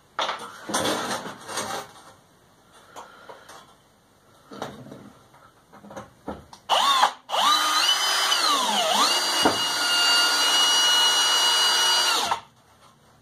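Cordless drill driving a screw through a large steel saw blade into the wooden workbench. A short burst comes first, then about five seconds of running whose pitch dips briefly partway before steadying, and it stops suddenly. Knocks and clatter of the blade being handled come before it.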